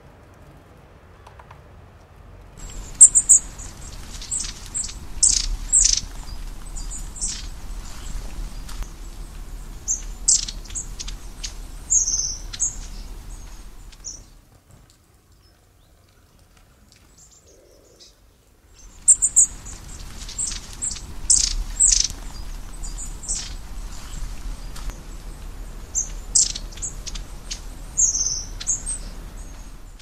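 Small songbirds chirping and calling in short, sharp, high notes. The same stretch of calls plays twice, with a few seconds of near silence between.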